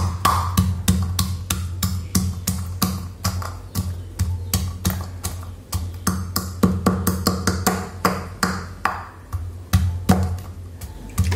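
Wooden pestle pounding garlic cloves and chili in a stainless steel bowl: a steady run of knocks, about four a second.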